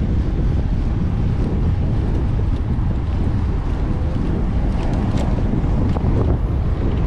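Wind buffeting the microphone of a camera on a moving road bicycle: a steady low rumble.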